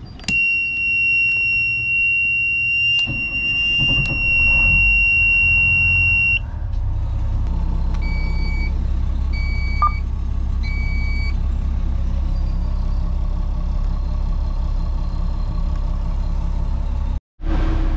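Boat engine start: a steady high warning buzzer sounds while the engine cranks and catches about three seconds in, and the buzzer cuts off a few seconds after the engine is running, typical of the low oil pressure alarm clearing. The engine then idles steadily as it warms up, with three short electronic beeps about eight seconds in.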